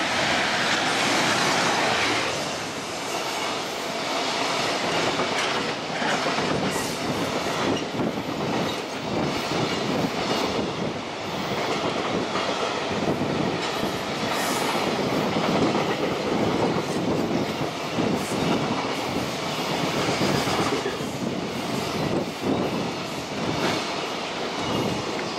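JR Freight EF210 electric locomotive passing close by at the start, then a long container freight train rolling past, wheels rumbling and knocking rhythmically over the rail joints.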